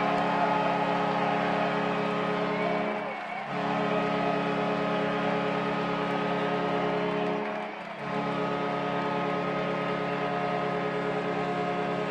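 Hockey arena goal horn sounding in long steady blasts, broken twice by short gaps, over crowd noise.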